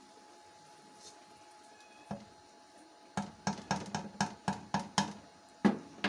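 Wooden spoon knocked against the rim of an aluminium cooking pot to shake the thick stew off it: a single knock about two seconds in, then a quick run of about eight taps, roughly four a second, and a last, loudest knock near the end.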